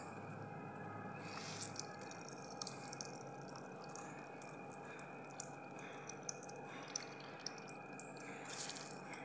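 Water dripping onto a steel plate as handfuls of salted grated cabbage and carrot are squeezed by hand, faint, with scattered small drips throughout.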